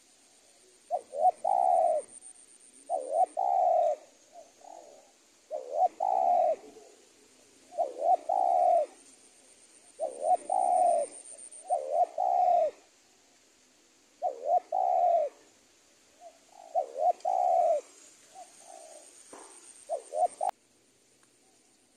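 Spotted dove cooing its song as a string of about ten short repeated phrases, one every second and a half to two seconds, stopping abruptly shortly before the end.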